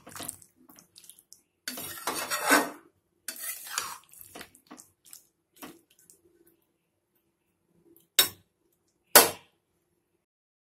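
Metal spatula scraping and stirring potato cubes in thick paste in a metal kadai, in several bursts over the first four seconds or so. Near the end come two short sharp knocks of metal on metal, about a second apart.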